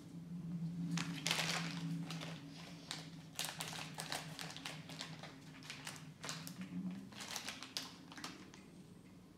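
A plastic LEGO minifigure blind-bag pouch crinkling and crackling as it is handled, snipped with scissors and pulled open: a quick run of small crackles and clicks, loudest about a second in.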